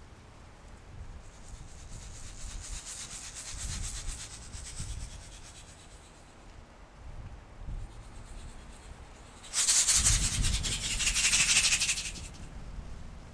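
Rapid dry buzz of a dragonfly's wings, dubbed in as a sound effect. It is faint at first, then loud for about two and a half seconds near the end, over a low steady hiss.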